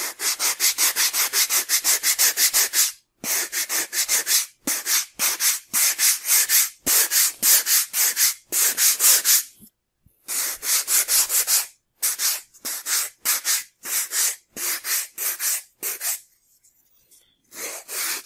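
Sandpaper rubbing over a foam model fuselage in quick repeated strokes, about five a second. The strokes come in runs broken by short pauses, with a longer pause near the end.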